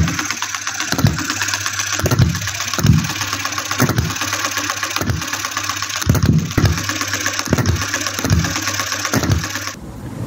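Small model diesel stationary engine (compression ignition, mechanical injection) running. Its firing strokes come as distinct low thumps about one to two a second, unevenly spaced, over a steady mechanical clatter. The engine sound cuts off abruptly near the end.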